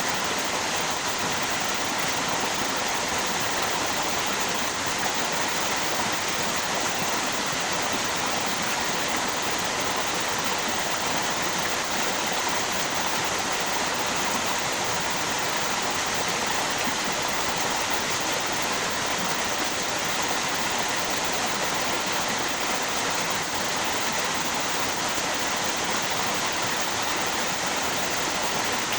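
River water and a waterfall flowing: a steady, unbroken rush of water.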